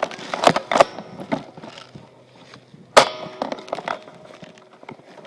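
Sharp single snaps of airsoft guns firing and BBs striking, a few close together in the first second and the loudest about three seconds in.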